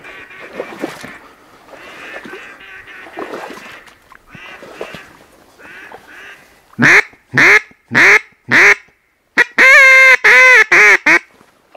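Duck quacking: softer quacks at first, then four loud single quacks and a quick run of about five more loud quacks near the end.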